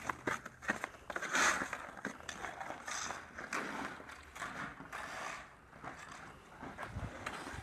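Hockey skate blades scraping the ice and a stick clicking on the puck as a player stickhandles while skating, heard as a scraping hiss broken by scattered sharp clicks.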